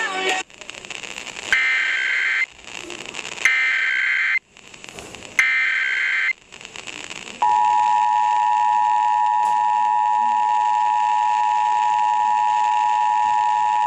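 Emergency Alert System test tones: three roughly one-second bursts of the SAME digital header, a harsh warbling data screech, each followed by about a second of faint hiss. Then, about seven seconds in, the steady two-tone EAS attention signal (853 and 960 Hz together) begins at a constant level.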